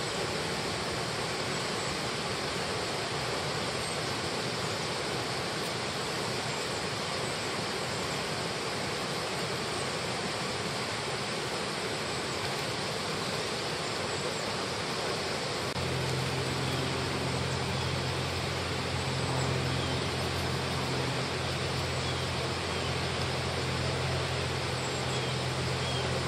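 Steady rush of flowing river water. About sixteen seconds in, a low steady motor hum joins it and keeps going.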